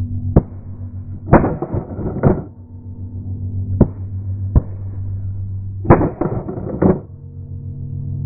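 Geese calling as the flock flies over: short, sharp honks, two quick runs of several calls with single calls between them. A steady low hum runs underneath.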